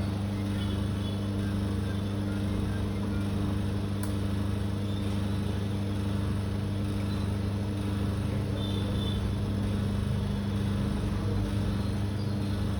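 A steady low electrical hum, unchanging throughout, with a faint hiss above it.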